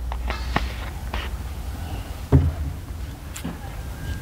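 Close-up eating sounds: chewing and mouth noises, with a few short clicks and one thump about two and a half seconds in.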